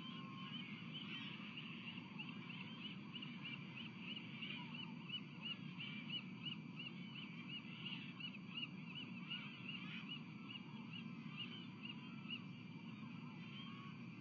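Osprey calling: a long run of short, high whistled chirps, about three a second, that stops a few seconds before the end, over a steady low background rumble.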